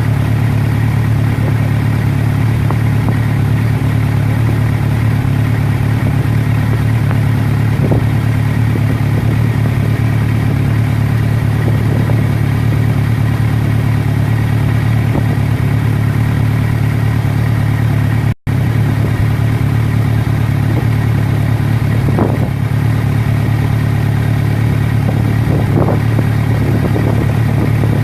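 A loud, steady engine-like hum that holds the same pitch throughout, cutting out for an instant about eighteen seconds in.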